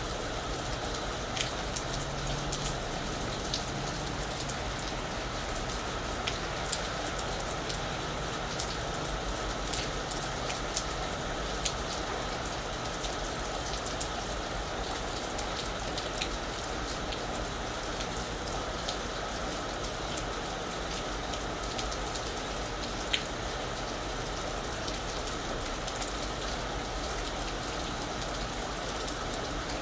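Steady rain falling on a roof, a constant hiss with scattered sharp drips and drop clicks.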